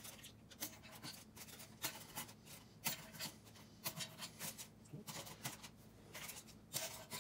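Aluminium foil crinkling and tearing as a screwdriver tip pokes holes through it against a metal intake manifold flange, in irregular short crackles and ticks.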